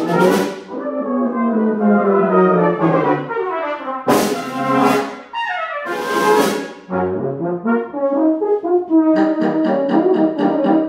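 A full brass band playing loud music: three heavily accented chords, at the start, about four seconds in and about six seconds in, each followed by falling lines. Near the end it breaks into fast repeated notes.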